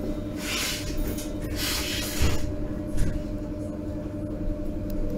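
Inside a Berlin U-Bahn H97 train: a steady hum and low rumble, with two bursts of hiss in the first couple of seconds and a couple of short knocks around the middle.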